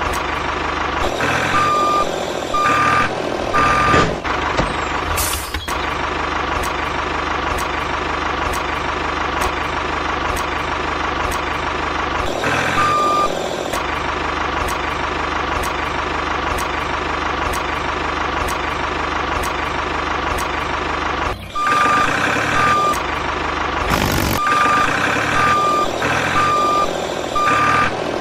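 Heavy vehicle engine running steadily, with a reversing alarm beeping in short runs: a few beeps near the start, one or two about halfway, and a long run of beeps near the end.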